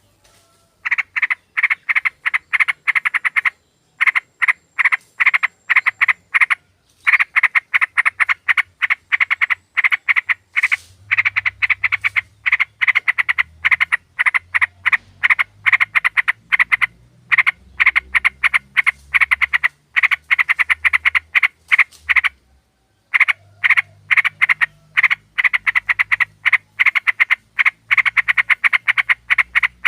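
Yellow-vented bulbul (trucukan) calling: a rapid, harsh chattering of short notes repeated many times a second, in long runs broken by brief pauses.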